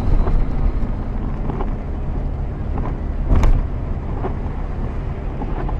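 Steady low rumble of a car driving on a wet road in heavy rain, as picked up by a dashcam microphone: tyre, spray and wind noise. A sharp knock stands out about three and a half seconds in.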